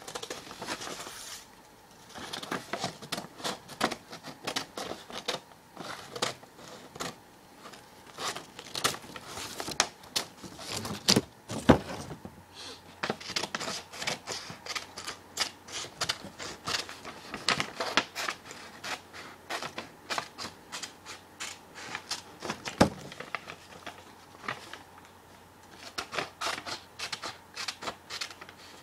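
Scissors cutting paper: a long run of irregular crisp snips and paper rustling, with brief lulls near the start and again past the three-quarter mark, and two sharper clicks, one a little under halfway and one around three-quarters of the way through.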